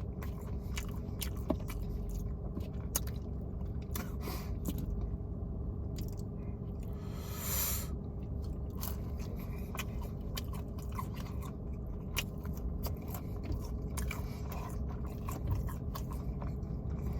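Close-miked mouth-eating sounds: steady chewing with many small wet clicks and crunches, over a faint steady hum. A brief hiss sounds about halfway through.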